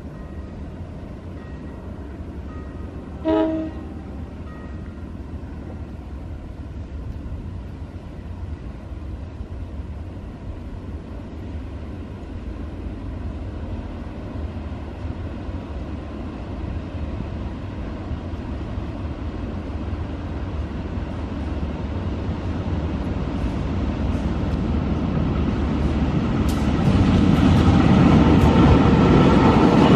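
Diesel-electric locomotive hauling a train of tank wagons as it approaches. A short horn blast sounds about three seconds in, and the engine's rumble and the rail noise then grow steadily louder, loudest near the end as the locomotive draws close.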